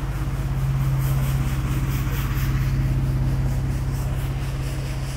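A low, steady engine-like hum with a fine rapid pulse, swelling about a second in and easing off toward the end.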